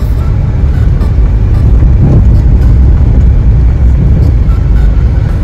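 A car driving along a rough dirt off-road track: a loud, steady low rumble.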